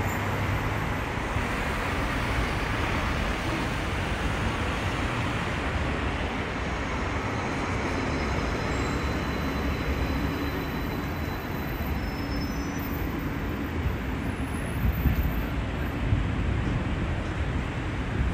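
City street traffic noise: a steady hum of passing cars, vans and buses, with a few louder low bumps near the end.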